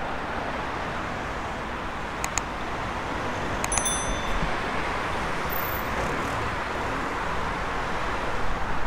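Steady road traffic noise from cars passing on a busy city street. A couple of quick clicks come about two seconds in, then a short high bell ding about four seconds in, a subscribe-button sound effect.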